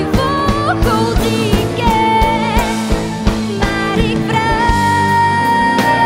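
A woman singing a Dutch-language musical number live with a band, holding two long high notes with vibrato, the second lasting nearly two seconds, over a steady drum beat.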